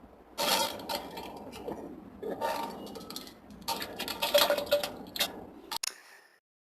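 Wet, sputtering fart sound effect of the diarrhea kind, in about four rattling bursts a second or so apart. It cuts off suddenly near the end.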